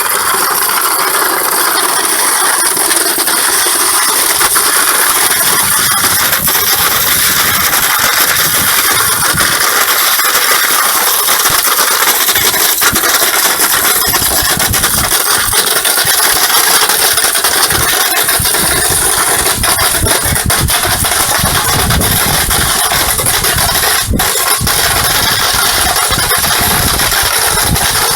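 Loud, continuous mechanical clatter: dense rapid clicking over a motor-like drone, with no pauses.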